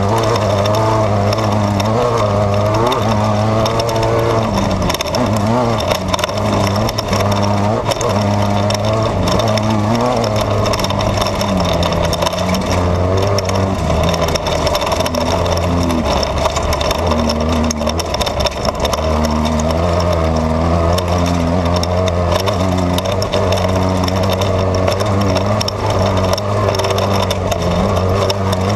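Off-road race car's engine running hard, heard from inside the car, its pitch rising and falling with the throttle and dropping lower for a few seconds past the middle. A constant rattle and clatter from the car running over rough desert terrain sits under it.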